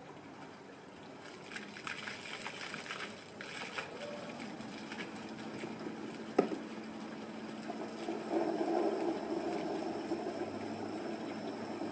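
Cardboard rustling and scraping against a solar panel, then one sharp knock about six seconds in, over the splashing of a small solar fountain pump into a plastic tub. From about eight seconds a motor hum rises in the background.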